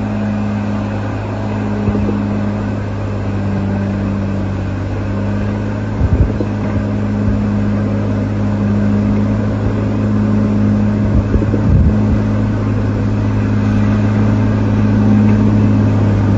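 Heavy snow-clearing machine's engine running steadily under load, a constant low hum with a couple of brief knocks about six and twelve seconds in.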